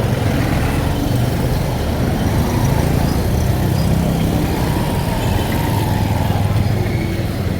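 Road traffic close by: motor vehicle engines running with a continuous low drone.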